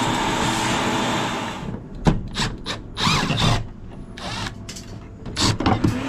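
Steady machinery noise that cuts off abruptly about two seconds in. After it comes a cordless drill/driver run in several short bursts, its motor pitch rising and falling, as it works the mounting screws of a refrigeration pressure control. Sharp clicks of metal handling come between the bursts.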